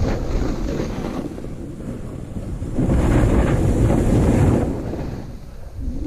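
Wind buffeting a snowboarder's action-camera microphone, with the snowboard sliding and carving through snow; the rushing grows louder for about a second and a half midway through.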